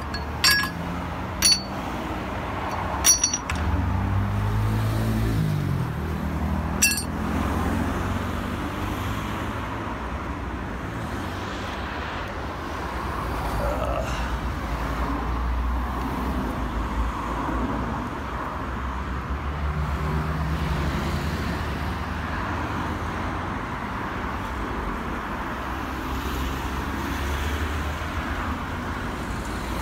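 Four sharp metallic clinks in the first seven seconds as the truck's broken thin aluminium step plate is handled, over steady road traffic noise and a low engine rumble; a vehicle passes about four seconds in.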